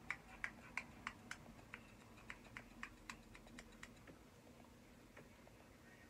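A quick, irregular run of light clicks and taps, about twenty of them, most in the first four seconds and thinning out after.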